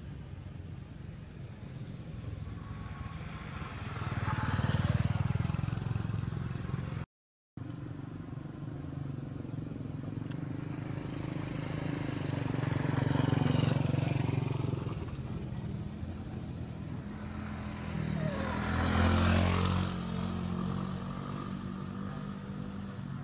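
Motor vehicles passing one after another, three times swelling up and fading away with a low engine hum. The sound drops out for about half a second around seven seconds in.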